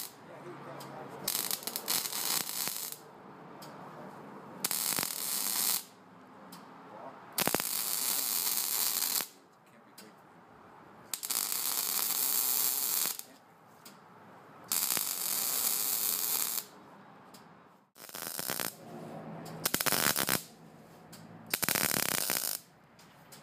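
MIG welding arc crackling in short runs of one to two seconds, about eight times, with brief pauses between as the puddle is worked in stints.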